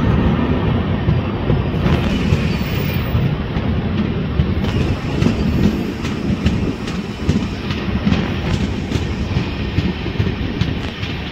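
Telangana Express passenger coaches running at speed: steady running noise of the wheels on the track with repeated clickety-clack as the wheels pass over rail joints, heard from an open coach door.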